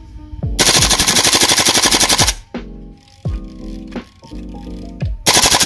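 King Arms TWS-9 gas blowback airsoft carbine firing full-auto: a rapid string of shots lasting nearly two seconds, then a second, shorter burst starting near the end.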